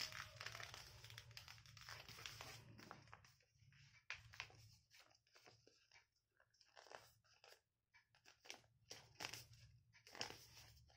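A sheet of paper being folded and creased by hand into a paper airplane: faint, intermittent rustling and crinkling, with short sharp crackles as the folds are pressed.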